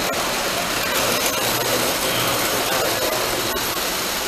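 Model trains running on metal track with a steady rumble, over the constant din of a crowded exhibition hall.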